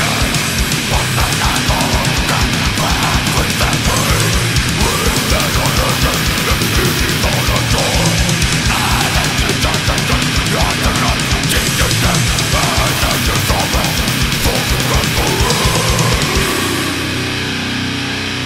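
Death metal: heavily distorted electric guitars over fast, dense double-bass drumming. About sixteen and a half seconds in the drums stop and the distorted guitar rings on alone, a little quieter.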